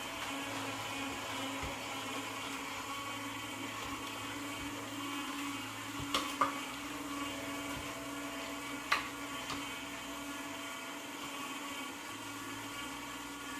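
Juico Uno upright slow (cold press) juicer running at its slow 35 rpm, its motor giving a quiet, steady hum as the auger presses produce. A few sharp cracks come about six and nine seconds in as produce is pushed down into the auger.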